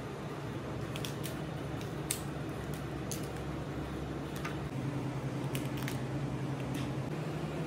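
Cooked king crab legs being broken apart by hand: a scattered series of sharp cracks and snaps of the shell as the meat is pulled out, over a steady low hum.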